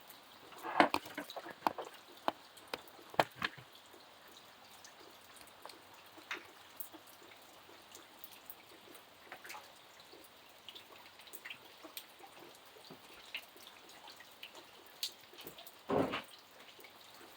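Rain dripping: scattered single drops landing irregularly over a faint steady hiss, with louder splashes about a second in, around three seconds, and near the end.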